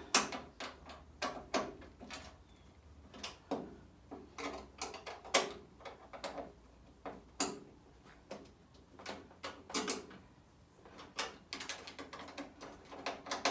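Irregular metal clicks and knocks, about one or two a second, some ringing briefly: a spanner, bolts and spacers working against the sheet-steel panels as a leg is bolted onto a sandblasting cabinet.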